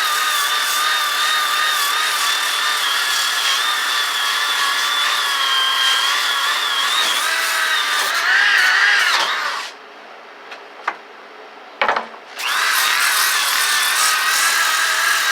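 DeWalt 6-inch disc sander running on wood, its motor whine wavering slightly as it works. About two-thirds in it is switched off and winds down, a click and a couple of knocks follow, and it starts up again about a second later.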